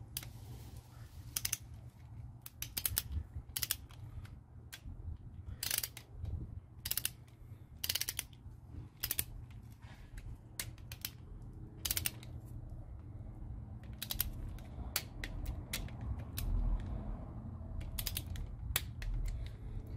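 Ratchet wrench clicking in short, irregular runs while the connecting-rod cap nuts on a MerCruiser 3.0 L crankshaft are turned down to a first-pass torque of 20 foot-pounds, over a steady low hum.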